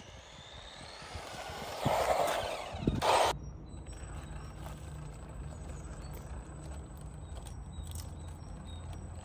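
WLtoys 124010 RC car driving, its brushed electric motor whining higher as the car speeds up over tyre and ground noise, ending in a loud rush about three seconds in. After that only a low steady hum remains.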